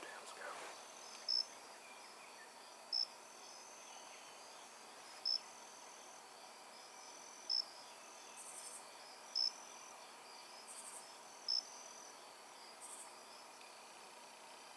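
Insects calling at dusk: a nearby cricket gives single short, sharp chirps about every two seconds over a thin, steady high-pitched insect trill. Three brief raspy buzzes from another insect come in the middle.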